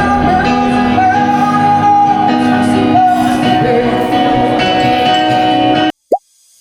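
Background music with a sung melody, cut off abruptly about six seconds in, followed by a brief rising blip and then near silence.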